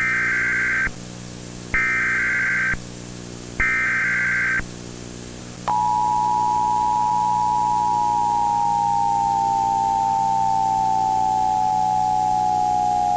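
Emergency Alert System broadcast. Three bursts of SAME header data tones, a harsh warbling buzz about a second long each with short gaps between them. About six seconds in, the two-tone EAS attention signal starts and slowly sags lower in pitch, with a steady hum and hiss underneath.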